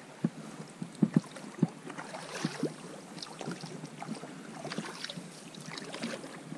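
Inflatable rowing boat under way: oar and water noise with knocks and creaks of the oars against the boat, including a few sharp knocks in the first two seconds.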